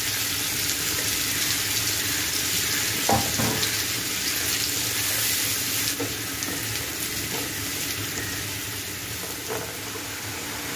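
Sliced onions sizzling steadily in hot oil in a frying pan, stirred with a spatula, with a few light knocks of the spatula against the pan.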